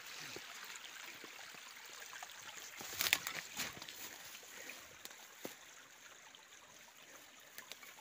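Small forest stream trickling steadily, its hiss slowly fading, with a few snaps and rustles of footsteps in wet leaf litter and brush, the loudest about three seconds in.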